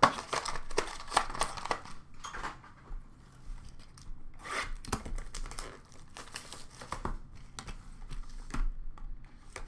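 Trading-card boxes and their cardboard and plastic packaging handled in a plastic bin: irregular crinkling and rustling with light knocks.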